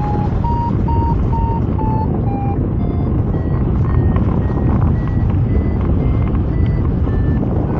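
Paragliding variometer beeping: a quick run of short beeps that rises and then falls in pitch over the first couple of seconds, then sparser, fainter, higher beeps, the sound of a vario signalling lift. Loud wind rushes over the microphone throughout.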